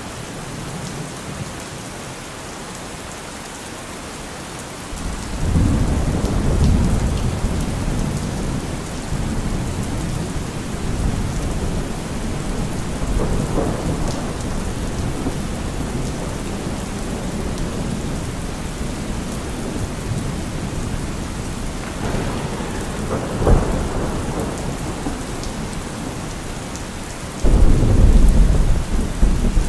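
Heavy rain falling steadily, with thunder setting in about five seconds in and rumbling on. There is a sharp crack about three quarters of the way through and a louder clap of thunder near the end.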